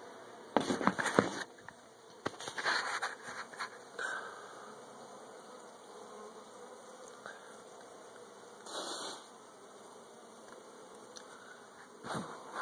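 Honey bees buzzing steadily around a hive opened for honey extraction, with several loud bursts of scraping and knocking as the frames are handled: one about half a second in, a longer one from about two to four seconds, a short one near nine seconds and another near the end.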